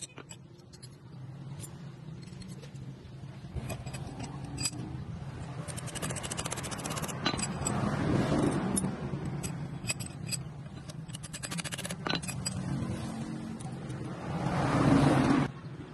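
Small cut steel parts clinking and scraping against each other and the vise, with scattered sharp metallic taps, over a steady low background hum. A louder swell of noise comes shortly before the end.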